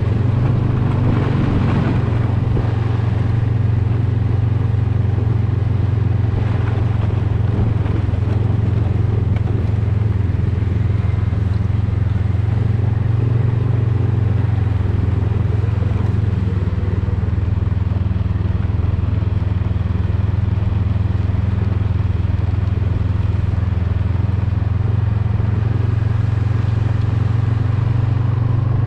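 Snowmobile engine running steadily at low revs as the sled travels slowly over packed snow, a constant low hum with no revving.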